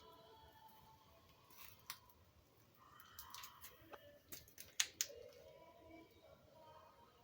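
Faint background hiss with a few short, sharp clicks, two close together near the middle being the loudest.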